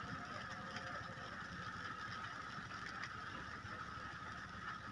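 Steady rain falling on a stationary car's windshield and body, heard from inside the car, with a low rumble underneath and a few faint drop ticks.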